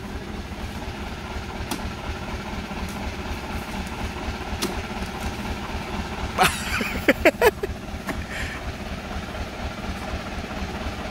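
Diesel engine of a heavy vehicle idling steadily with an even low throb. A few short, sharp, higher sounds come about six and a half to seven and a half seconds in.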